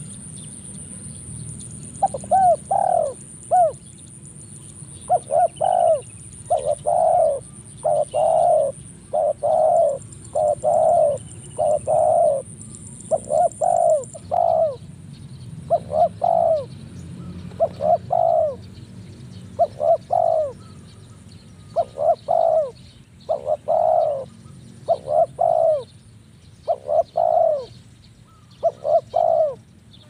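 Spotted dove cooing over and over in short phrases of a few low, rounded notes, starting about two seconds in. A faint thin high tone sounds in the background and stops about halfway through.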